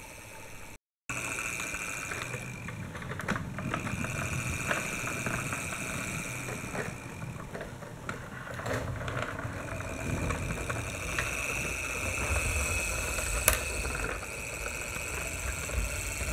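Toy tram running across the floor: a steady whir from its drive with a rattle of small plastic wheels and gears, and a sharp click near the end.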